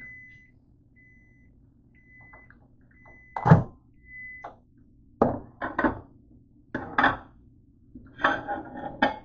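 Microwave oven's hum stops as the cycle ends, and it gives a string of short, high beeps about once a second. Near the middle comes a loud thunk as the door is popped open, followed by clunks and clatter of a plate being taken off the turntable.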